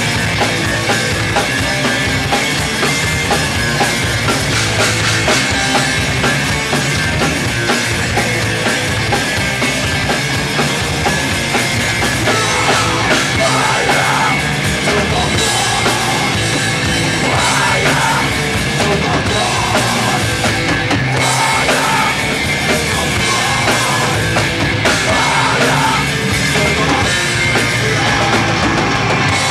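Hardcore punk band playing live at full volume: electric guitars, bass and drum kit.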